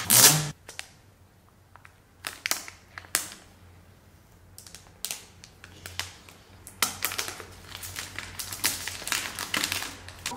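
Paper pull-tab seal on an iPhone 12 Pro box tearing off with a quick rip at the start, then the cardboard box and its packaging handled, with scattered taps and clicks and a run of crinkling rustles over the last few seconds.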